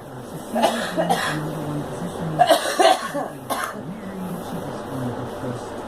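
A girl coughing in short fits: a pair of coughs about a second in, a harder pair around two and a half to three seconds, and one more shortly after.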